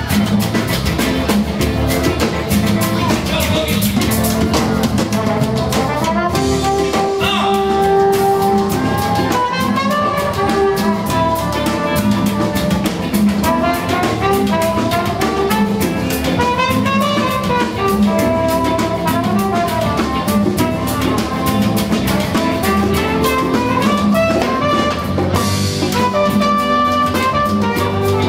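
A live band playing: a trumpet plays a melodic line over a drum kit and rhythm section.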